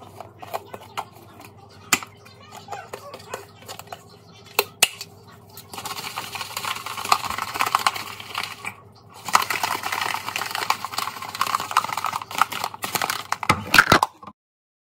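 Plastic shaker bottle being shaken hard, the mixing ball rattling inside, in two bouts with a brief pause just after halfway, cutting off abruptly near the end. Before the shaking, scattered clicks and taps as the bottle and its flip cap are handled.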